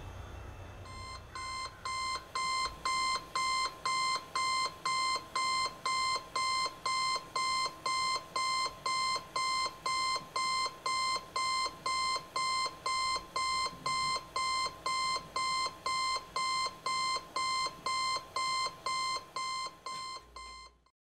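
Electronic alarm clock beeping in a steady, even rhythm of about two beeps a second, swelling in over the first couple of seconds and cutting off abruptly near the end.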